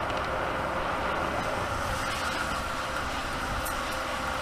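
Steady rushing road and tyre noise of a Mercedes-Benz GenH2 hydrogen fuel-cell electric truck driving.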